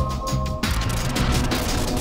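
Background electronic music with a steady beat; about half a second in, a hissing noise swell comes in over it.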